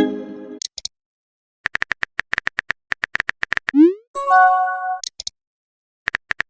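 Chat-app sound effects. A message chime rings out and fades at the start. Then comes a fast run of phone-keyboard typing clicks, a short rising swoosh of a message being sent, and a second chime of an incoming message. The typing clicks start again near the end.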